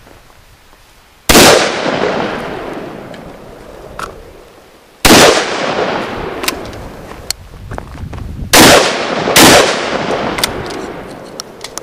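Four 12-gauge shotgun blasts from a Stoeger Uplander side-by-side cut down to 11-inch barrels: two shots a few seconds apart, then two more close together near the end, each trailing off in a long echo. Light clicks come between the shots.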